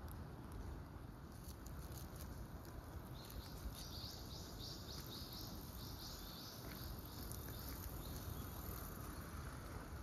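Faint outdoor ambience: a steady low rumble and hiss. From about three seconds in until past the middle, a run of high chirps repeats evenly, two to three a second.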